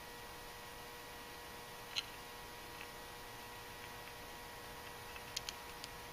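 Faint clicks of an ABS wheel speed sensor being worked by hand in its crusty mounting bore on the steering knuckle: one sharp click about two seconds in and a quick run of three or four near the end, over a steady electrical hum.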